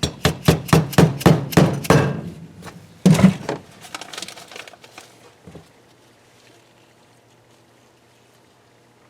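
Hammer tapping on an installer tool, driving a part home in a KA24DE cylinder head, most likely a valve stem seal onto its guide. There is a quick run of about nine sharp taps, a harder blow about three seconds in, then a few lighter taps that stop before six seconds.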